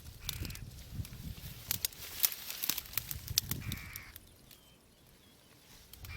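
Jackdaws calling, several short calls from birds of the colony gathering round.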